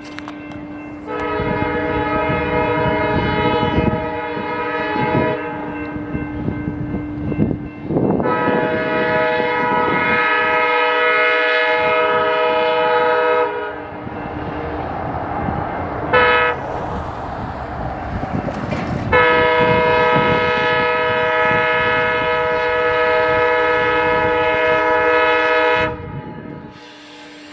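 Amtrak passenger locomotive's air horn sounding the grade-crossing signal: two long blasts, one short, then a long one, over the rumble of the approaching train.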